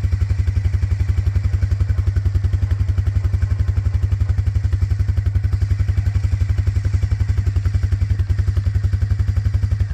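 Honda TRX300FW ATV's single-cylinder four-stroke engine idling with a steady, even putter of about a dozen pulses a second, run briefly on fresh oil to circulate it through the oil pump and filter. It is shut off abruptly at the very end.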